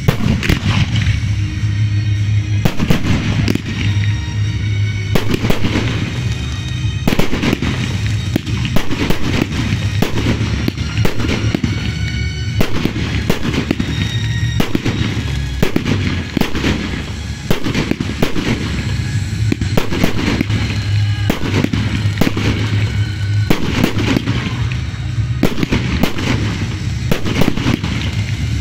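Fireworks display: shells launching and bursting in quick, continuous succession, many bangs with no pause.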